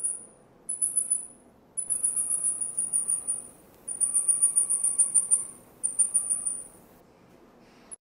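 A small animal's very high-pitched chirping trills, in five or six bursts of rapid pulses at about ten a second. The longest bursts are about two and four seconds in, and the calling stops about a second before the end.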